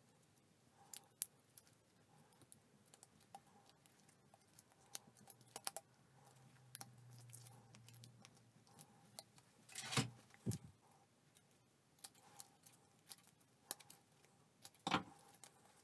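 Faint, scattered clicks and crinkles of a thin PET plastic strip cut from a bottle, handled and threaded by fingers. There are louder snaps about ten seconds in and a sharp snip near the end as scissors trim the strip.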